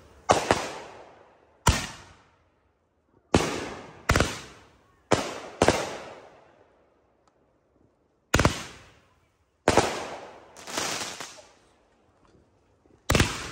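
Consumer aerial fireworks firing and bursting overhead: about ten sharp bangs at irregular intervals, each fading away over a second or so, with two short lulls between volleys.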